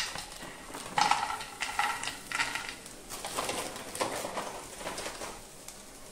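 Cashews poured from a plastic pouch, rattling into a dry nonstick frying pan along with the crinkle of the pouch, in several uneven bursts after a sharp click at the start.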